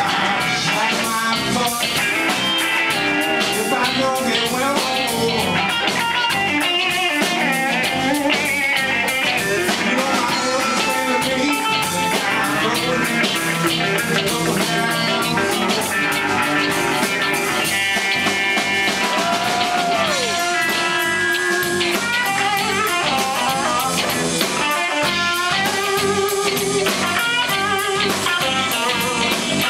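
Live blues band, two electric guitars, bass guitar and drum kit, playing an instrumental stretch of the song with electric guitar lines to the fore. About two-thirds through there is one falling string bend.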